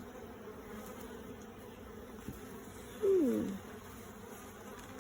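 Steady buzzing of many honeybees around an opened hive. About three seconds in, a short louder sound glides down in pitch.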